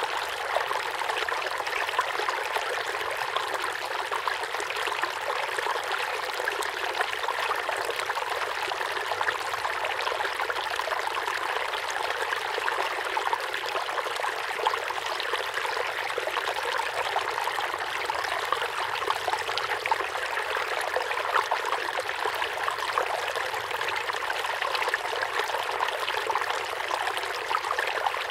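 Water running and trickling steadily, with many small splashes throughout.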